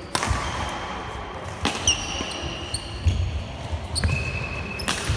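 Badminton rally: rackets strike the shuttlecock three times, a second or more apart. Between strokes, court shoes squeak on the sports-hall floor and footsteps thud.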